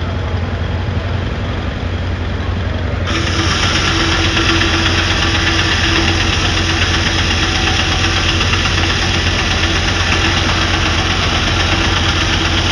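An engine running steadily; about three seconds in the sound suddenly grows brighter and louder, with a steady humming note added on top, and holds there.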